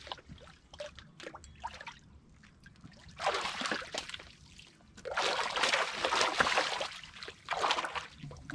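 Water splashing and sloshing in the rocky shallows, in bursts: one about three seconds in, a longer, louder one from about five to seven seconds, and a short one near the end, with small clicks and knocks before them.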